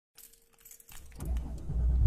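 Light metallic jingling, then a deep engine rumble that comes in just over a second in and grows louder.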